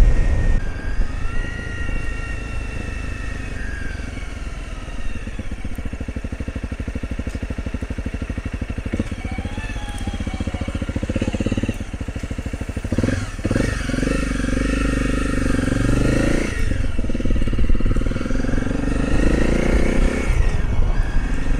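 Adventure motorcycle engine running at low revs with an even pulsing beat while rolling slowly on a gravel road, then opening up and pulling louder from a little past halfway, its note rising as it accelerates.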